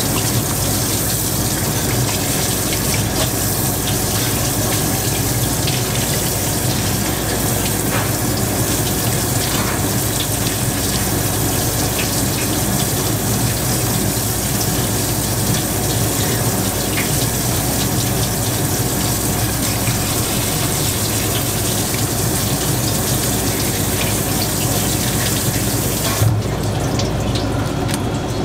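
Kitchen tap running steadily, its water splashing over raw puffer fish being rinsed by gloved hands in the sink. The water is shut off near the end.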